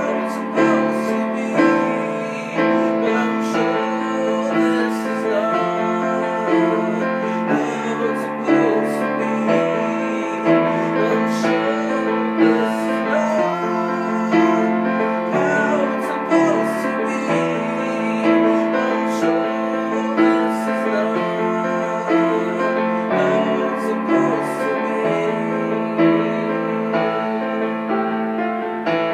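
Piano music, with notes held over one another and sharp strikes here and there.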